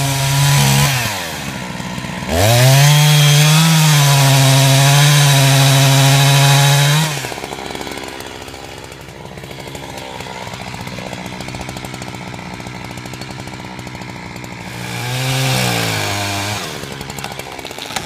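Two-stroke chainsaw cutting into the base of a tree being felled. It revs, runs at full throttle through the cut for about five seconds, drops to a steady idle for several seconds, then revs again near the end.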